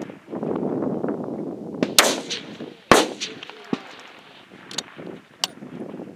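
Rifle shots on an F-Class firing line: two loud, sharp reports about a second apart near the middle, then fainter shots from farther down the line.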